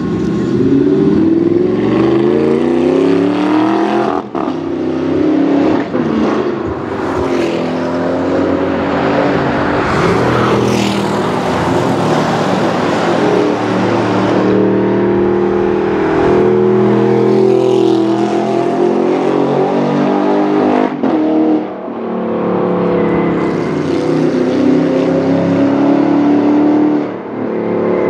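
Audi R8 with an aftermarket Larini exhaust accelerating hard on track. The engine note climbs repeatedly and breaks off sharply for a moment between gears, several times.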